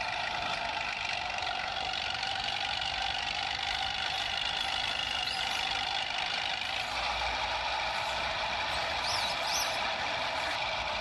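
Vehicle motor running steadily: an even drone of several held tones that doesn't change in pitch.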